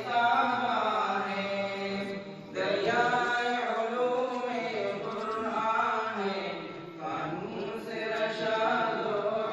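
Male chanting of a slow melody in long drawn-out phrases, pausing briefly about two and a half and seven seconds in.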